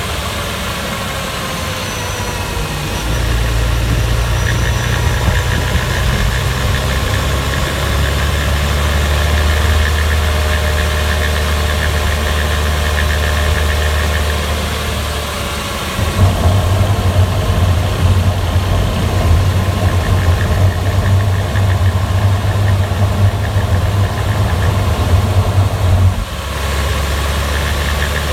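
Porsche Boxster 986 S's 3.2-litre flat-six engine running, its pitch gliding in the first few seconds. About halfway through it gets louder and rougher for around ten seconds, then drops back near the end.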